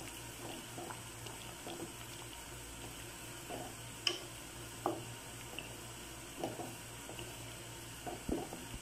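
Sweet-and-sour sauce simmering in a pan while a wooden spatula stirs it, with a few light knocks of the spatula against the pan. A faint steady hum runs underneath.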